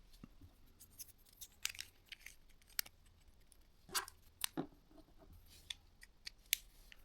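Scattered light clicks and taps of small mobile-phone parts and tools being handled on a work surface, over a faint low hum.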